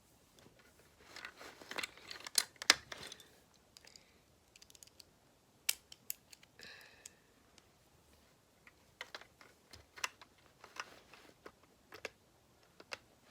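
Plastic Lego bricks clicking and clattering as they are handled and pressed together, in scattered, irregular clicks with a few short rustling stretches.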